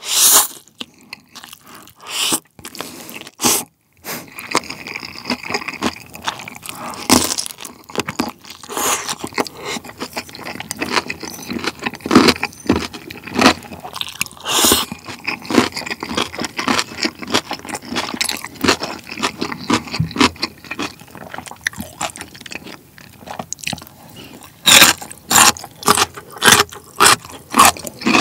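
Close-miked eating: black-bean jjapagetti noodles slurped in and chewed with wet smacks and clicks. Near the end come a run of sharp crunches, about two a second.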